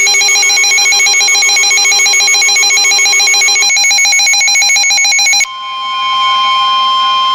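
Weather alert radios sounding a rapidly pulsing electronic alarm. Part of it drops out about halfway through, and a little after five seconds in it gives way to a single steady high tone, the NOAA Weather Radio 1050 Hz warning alert tone.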